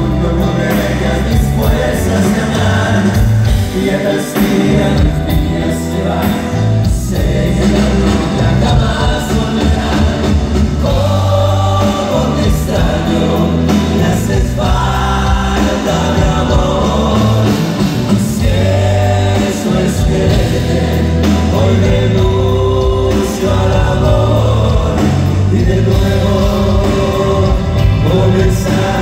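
Live grupera band music played loud: several male vocalists singing together over electric guitars, bass and drums.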